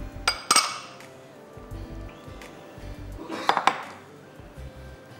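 Kitchen utensils clinking against bowls and dishes: two clinks about half a second in and a quick cluster about three and a half seconds in, over faint background music.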